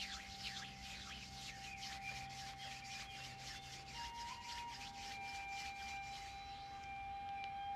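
Palms rubbed briskly together close to the microphone, about four swishing strokes a second, stopping about six and a half seconds in. A steady high tone sounds underneath throughout.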